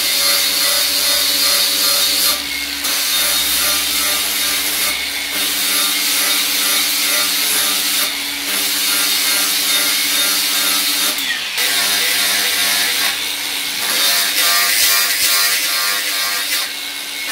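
Angle grinder running against a hardened steel hammer head, grinding the surface clean all round: a steady motor whine under the hiss of the disc on steel. The tool eases off the work briefly every few seconds, and its pitch sags once about eleven seconds in as it is pressed harder.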